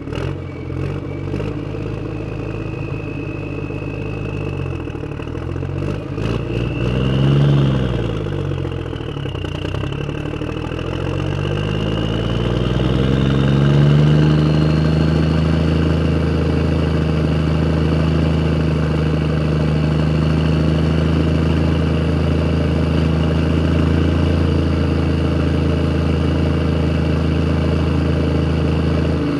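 Tractor engine running while driving. The revs rise and fall briefly about seven seconds in, then climb from about twelve seconds and hold steady and louder, with a few light clatters early on.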